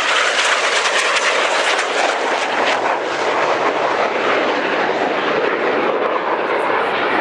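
Loud jet noise of a Red Arrows BAE Hawk's Adour turbofan flying past at display power, crackling for the first few seconds and then a steady rush as the jet climbs away.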